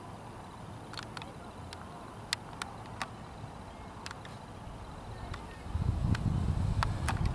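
About a dozen sharp clicks at irregular intervals, then from about six seconds in a louder low rumble on the microphone.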